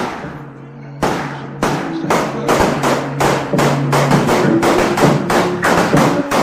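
Music: a song's instrumental stretch, sharp percussive hits coming faster and faster over held low notes.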